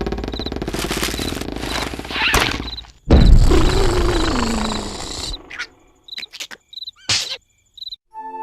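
Cartoon sound effects: a dense rattling noise, then a sudden loud crash about three seconds in, followed by a sliding tone that falls in pitch. Short high cricket-like chirps repeat through much of it, and the last few seconds hold only short scattered hits.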